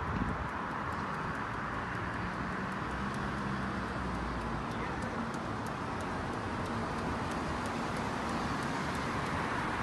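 Many people clapping at a distance in a street, a steady patter of hand claps.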